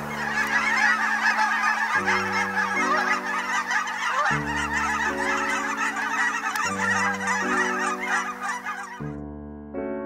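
A large flock of geese honking, a dense overlapping chorus of calls that cuts off about nine seconds in. Slow piano chords play beneath the calls throughout.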